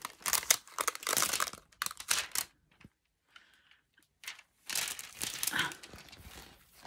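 Rolled diamond painting canvas and its clear plastic cover film crinkling and rustling as it is handled and unrolled, in two bouts with a pause of about two seconds between them.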